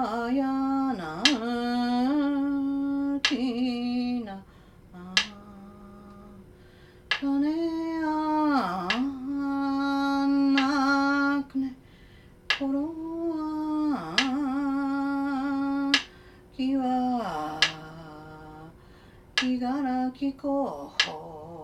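A woman chanting an Ainu yukar (heroic epic) in phrases of long held notes that dip in pitch, with pauses between, while beating time with sharp taps of a wooden stick on a wooden block every second or two.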